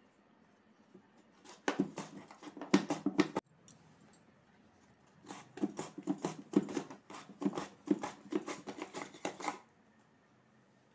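A raw potato being pushed back and forth over the blade of a plastic mandoline slicer, giving a quick scraping cut on each stroke at about four strokes a second. There are two runs: a short one that stops abruptly, then a longer one after a pause of about two seconds.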